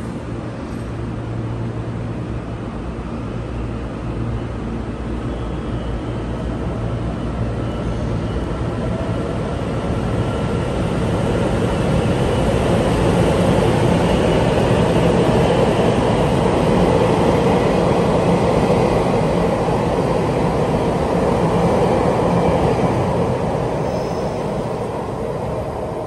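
Electric multiple-unit passenger train running through the station, its rumble of wheels and motors building from about ten seconds in, holding, then easing off near the end.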